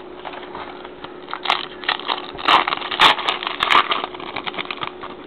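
A trading card pack wrapper crinkling and being torn open, a dense run of crackles and sharp crinkles starting about a second and a half in, loudest around the middle, then easing off.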